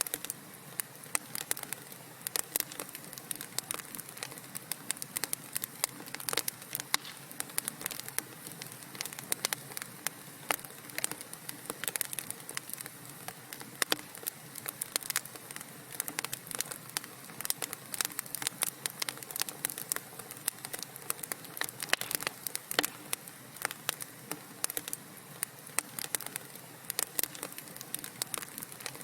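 Wood fire burning in a fireplace: a dense, irregular crackle of sharp pops and snaps over a steady soft hiss.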